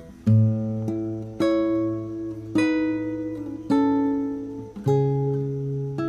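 Background music: a guitar playing slow plucked chords, one about every second, each left to ring and fade.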